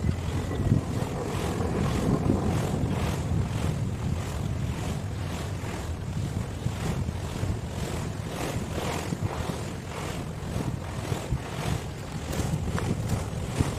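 Wind buffeting the microphone over sea surf: a steady low rumbling noise that swells and fades about every half second.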